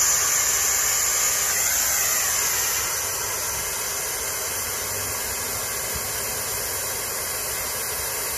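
Compressed air hissing through the valve of a VEVOR triple-bag pneumatic air jack as the bags inflate and lift. The hiss starts abruptly, then eases a little about three seconds in and holds steady.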